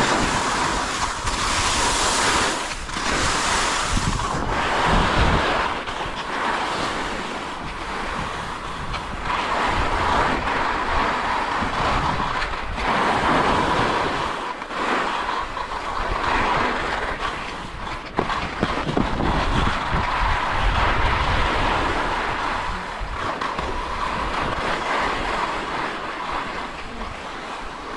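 Wind rushing over the microphone, a loud, steady rushing that swells and eases every few seconds.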